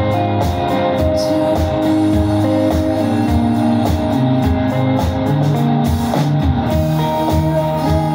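Live indie rock band playing an instrumental passage: electric guitars, bass and a steady drum beat, with no singing.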